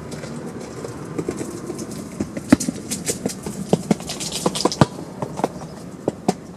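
A run of irregular sharp clicks and taps over a steady outdoor background noise, thickest in the middle and thinning out near the end.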